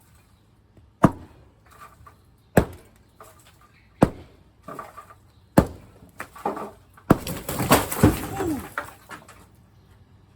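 Five heavy strikes on a cinderblock and concrete wall, about one every one and a half seconds, each followed by a brief clatter. About seven seconds in, a section breaks loose and crashes down as a rush of falling rubble lasting a couple of seconds.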